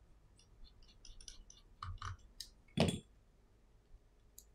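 Light clicks and taps of a precision screwdriver and an iPhone being handled on a silicone repair mat, with one louder knock about three seconds in.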